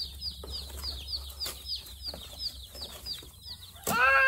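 A box of day-old hatchery chicks peeping: many short, high, falling peeps, several a second. Near the end a child's voice breaks in with one loud, drawn-out vocal sound.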